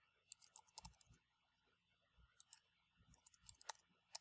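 Faint typing on a computer keyboard: scattered keystrokes in short runs, with a pause of about a second in the middle.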